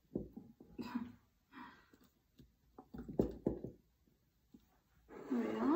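Flower stems being handled and repositioned in a glass vase of water: leaves rustling, with several light knocks and taps of stems and hands against the glass, and a short rising tone near the end.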